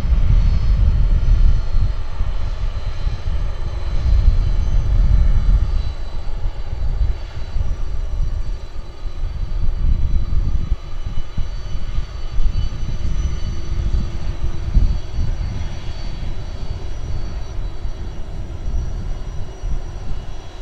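Boeing 747 freighter's four turbofan jet engines running at low thrust as it taxis: a heavy, fluctuating low rumble with a faint steady high whine over it.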